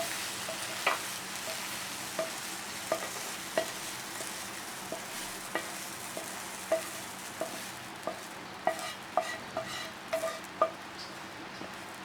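Oil in a frying pan still sizzling and slowly dying down after the stove is turned off, while a spatula scrapes and taps against the pan about once a second, more often near the end, as the egg fry is lifted out into a bowl.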